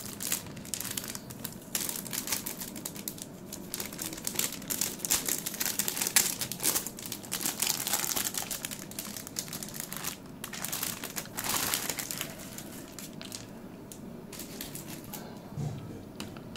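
Metallized anti-static shielding bag crinkling and crackling as hands peel it off a motherboard. The crinkling is busy for most of the stretch, then dies down to faint handling noise about three-quarters of the way through.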